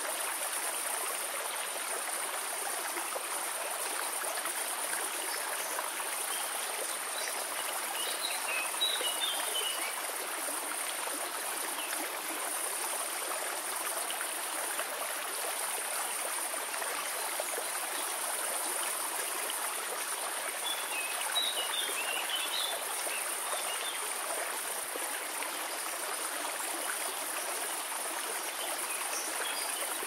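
Waterfall spilling in many thin streams over rock, a steady rushing of water. Birds chirp briefly a third of the way in and again about two-thirds through.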